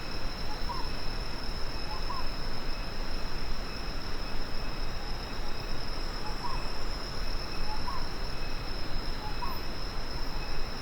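Daytime tropical jungle ambience: a steady high-pitched insect drone, with a bird's short call repeated five times at irregular intervals.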